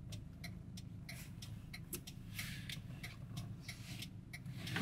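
A vehicle's turn-signal indicator clicking in a steady rhythm inside the cabin, over the faint low hum of the running engine.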